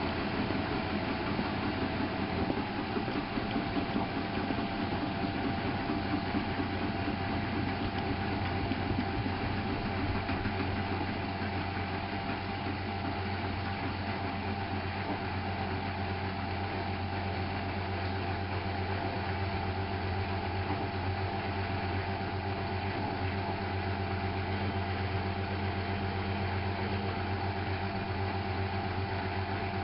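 Miele Novotronic W830 washing machine running with a steady motor hum and a thin steady whine, a little uneven for the first ten seconds or so, then even.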